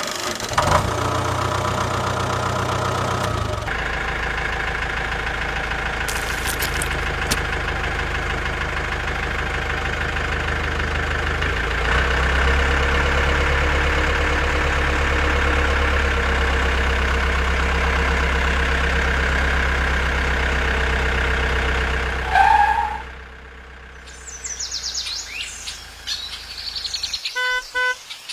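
Steady diesel-tractor engine sound for a remote-controlled toy tractor, changing note about four seconds in and growing louder about twelve seconds in, then stopping a little after twenty seconds. Birds chirp after it stops, and a short beeping electronic effect sounds near the end.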